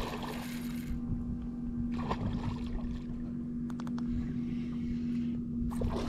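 A hooked redfish splashing at the water's surface near the start and again briefly about two seconds in, over a steady low hum from the boat and wind rumble on the microphone.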